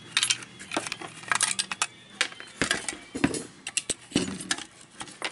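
Sheet-metal housing of a 12 V 5 A power supply being taken apart by hand: irregular metallic clicks, clinks and scrapes as the circuit board is worked out of the case.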